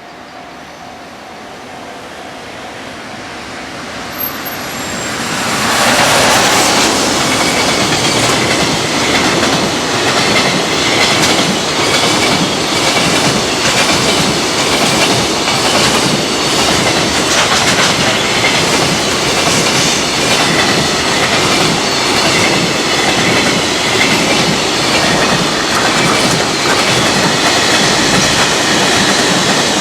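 Freight train passing at speed over rail joints. Its approach builds over the first six seconds, then the train runs by loudly, the wagon wheels clattering rhythmically over the joints.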